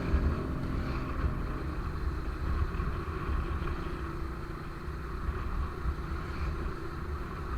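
A motorcycle running along the road: a steady low rumble of engine and riding noise.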